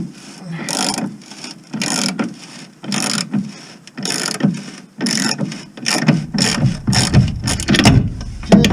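Hand ratchet clicking in repeated strokes, about one a second and closer together near the end, as a rusted bumper bolt is worked loose. A low rumble joins about six seconds in.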